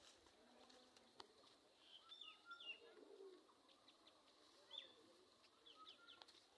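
Faint birdsong: scattered short chirps and whistled notes from several birds, with a few sharp clicks.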